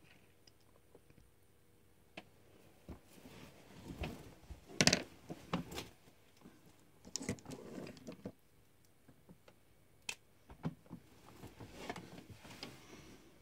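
Scattered small clicks, taps and short rustles of handling in a small room, loudest in a cluster about five seconds in and again about seven seconds in, with quiet between.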